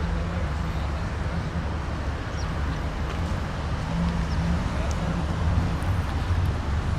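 Mazda 6 engine idling steadily, a low even hum under constant outdoor background noise.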